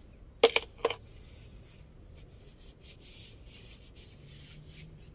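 Rag rubbing and wiping a brake caliper by hand in a run of short scrubbing strokes. Two or three sharp knocks, the loudest sounds, come about half a second in.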